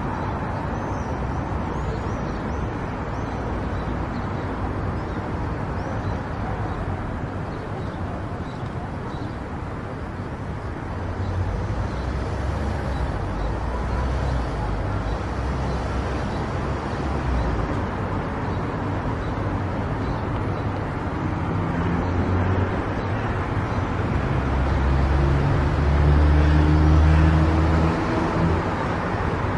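Car driving along a road: steady tyre and road noise with the engine underneath. It grows louder and deeper about a third of the way in, and near the end the engine hum rises in pitch as the car picks up speed.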